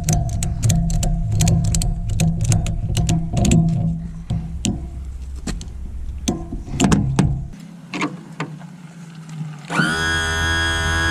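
Background music with quick percussive, plucked notes that thin out. About ten seconds in, a sustained electronic chord cuts in sharply.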